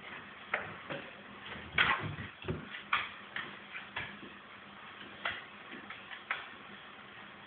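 A rabbit moving about on a staircase: irregular light taps and knocks, loudest about two and three seconds in.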